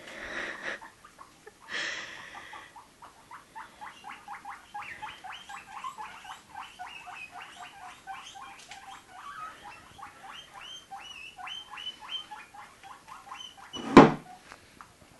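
Guinea pigs squeaking in a long run of short, quick calls, about four a second. Near the end there is a single sharp thump, the loudest sound here.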